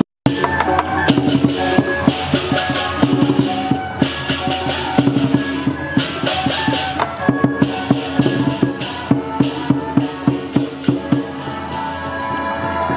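Traditional temple procession music: fast, dense drum and percussion strikes under a sustained melody line, with a momentary dropout at the very start.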